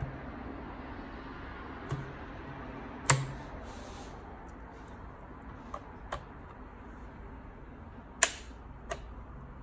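Sharp clicks and knocks from a laptop and a plastic card being handled on a desk as the card is worked into the gap around the laptop's back panel. There are about six short clicks, the loudest about three seconds in and another strong one near the end, over a steady low background hum.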